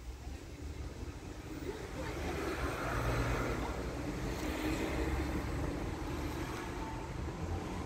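M62-class diesel locomotive running as it draws into the station: a low engine rumble mixed with rolling noise that grows louder over the first three seconds, then holds steady.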